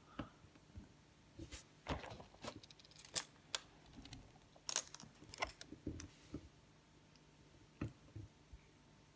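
Small plastic building bricks clicking and clattering as they are handled and pressed together: irregular sharp little clicks, most of them in the middle stretch, with a last one near the end.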